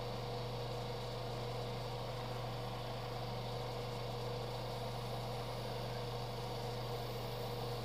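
Small electric motor running steadily, a low hum with a fainter constant whine and hiss over it, unchanging throughout.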